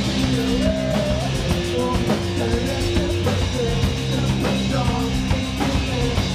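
Live rock band playing: electric guitar through an amp, a drum kit, and a singer's voice over the top.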